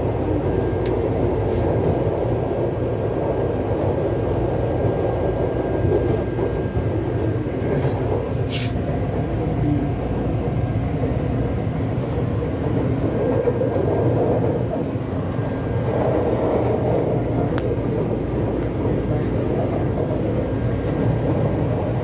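Taipei Metro high-capacity steel-wheel train heard from inside the car while running at speed: a steady rumble of steel wheels on rail with motor hum.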